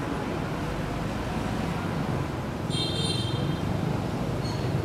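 Steady low rumble of distant motor traffic, with a short high-pitched tone a little under three seconds in.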